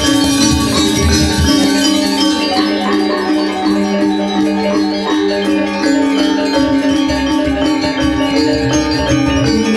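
Balinese gong gamelan ensemble playing: interlocking bronze metallophones and small gongs ringing, over strokes on the two-headed kendang drum. The low drum part drops out about two seconds in and comes back after about six and a half seconds.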